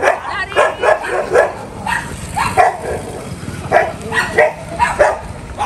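A dog barking in a run of short, irregular barks.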